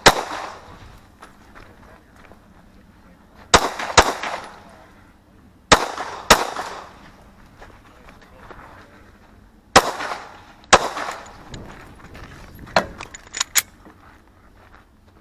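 Semi-automatic pistol fired in three pairs of shots, each with a short echo off the range: the first pair about three and a half seconds in, the second near six seconds, the last near ten seconds. A few fainter clicks and knocks follow near the end.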